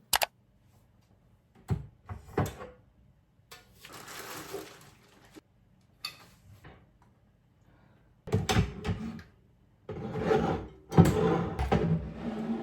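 Household items being handled and put away: a sharp click, a couple of knocks, a stretch of rustling, then a busier clatter and rustle of things being moved over the last few seconds.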